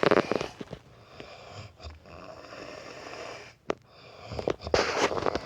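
A sleeping man snoring: a strong snore at the start and another about four and a half seconds in, with softer wheezy breathing between.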